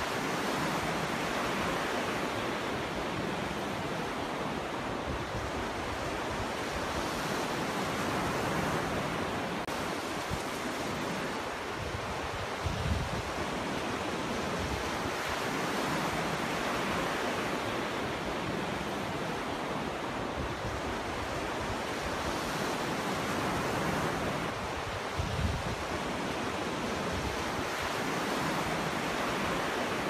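Sea waves breaking and washing onto the shore: a steady rush of surf that swells and eases every several seconds. Twice, about a third of the way in and again near the end, a brief low thump stands out.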